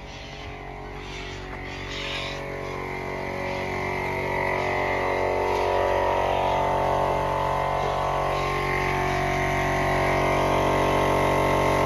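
Plasma cutter running with a steady electrical drone that grows louder over the first few seconds, then holds.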